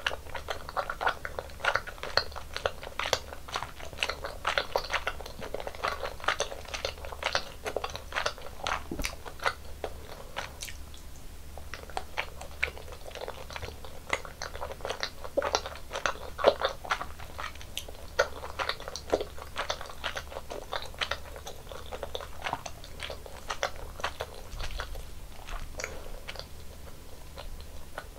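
Close-miked eating sounds: a person biting and chewing food, with a steady run of quick, irregular crunchy and sticky clicks.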